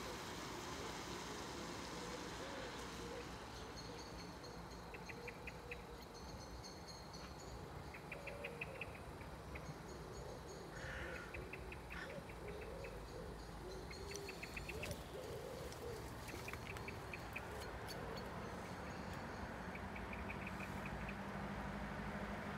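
Faint birds calling: short, rapid twittering phrases repeating every couple of seconds, with low wavering cooing notes between them. A low hum grows near the end.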